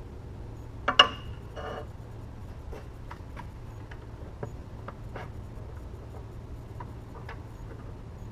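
A metal tool block holding a diamond dresser is set down on a metal sharpener platform: a sharp metallic clack with a brief ring about a second in, a short rattle right after, then light ticks and taps of handling, over a steady low hum.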